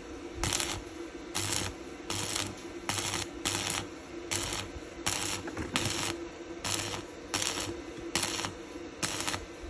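Coffee beans rattling and sliding in a roasting pan as they are stirred by hand, in regular swishes about one and a half a second.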